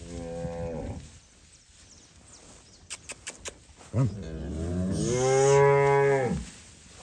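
A cow mooing twice: a short moo at the start, then a longer, louder moo from about four seconds in that lasts over two seconds. A few sharp clicks come a little before the second moo.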